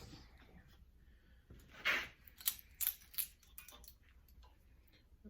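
Hand tools and loose metal parts being handled on an old foot-operated metal shear during disassembly: a brief scraping swish about two seconds in, then a few sharp light clicks and clinks.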